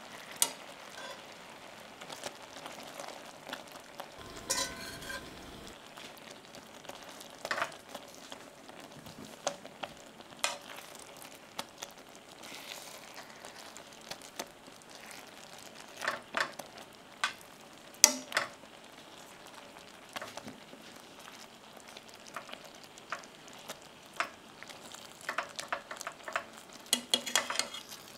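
Cream sauce simmering with a steady light sizzle in a stainless steel sauté pan, with a wooden spatula and metal tongs stirring and knocking against the pan. Scattered sharp clicks come through, the loudest about 18 seconds in and a flurry of them near the end.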